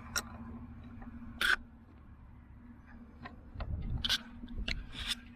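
A scatter of sharp clicks and knocks with light scraping, from hands working a crescent wrench at the drain plug and handling the camera, over a faint steady hum. The loudest knock comes about a second and a half in, and there is a low thud near four seconds.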